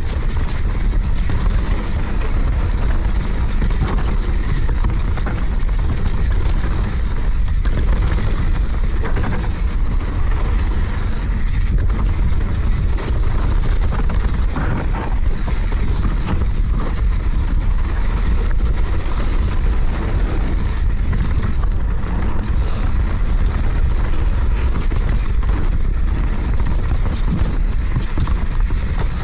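Constant rush of wind on the camera microphone as a Radon Swoop downhill mountain bike runs fast down a dirt forest trail. Underneath are the tyres on dirt and roots, and many short knocks and rattles from the bike over the bumps.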